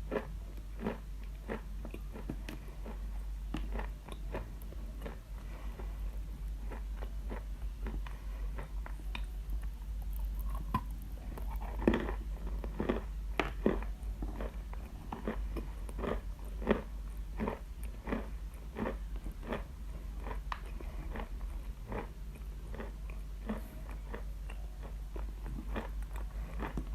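Lump of natural Khrapovsky edible chalk being bitten and chewed: a run of dry, irregular crunches, roughly one or two a second.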